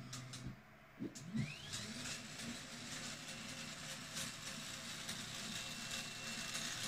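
3D printer stepper motors and fans running during an ERCF multi-material filament change. A steady low hum stops about half a second in, a few soft knocks follow, a rising whine comes at about two seconds as a motor speeds up, and then a steady whir with a faint high tone continues.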